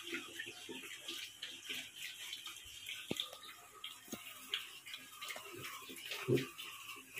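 Pigs eating wet feed: a run of irregular wet slurping and chomping, with a louder short grunt about six seconds in.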